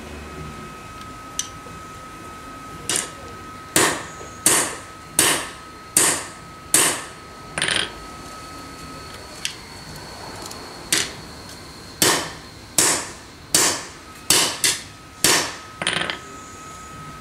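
Hammer striking a steel punch to peen the rivets of a replaceable sprocket nose on a chainsaw guide bar, set in a riveting tool. About fifteen sharp metallic blows in two runs, roughly one a second, with a pause of a few seconds in the middle.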